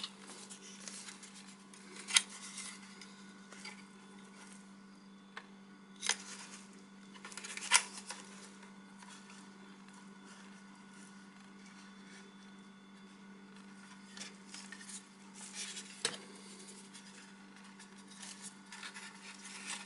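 Handling of a battery LED video light and its attachments: scattered clicks and knocks, a few sharp ones, with light rubbing in between. A steady low hum runs underneath.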